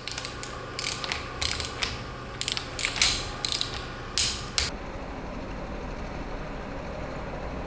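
Ratchet of a torque wrench clicking in short bursts, about eight of them, as the nuts on a plunger pump head are run down toward 80 Nm. After about four and a half seconds the clicking stops and a steady low hum remains.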